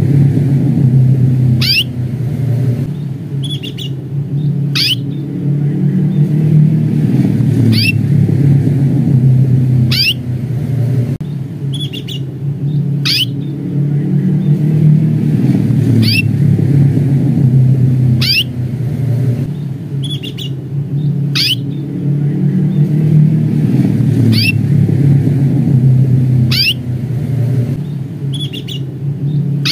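Canary giving short, sharp 'cuit' calling chirps, one roughly every three seconds, with a few fainter notes between them. Under the calls runs a loud, steady low rumble.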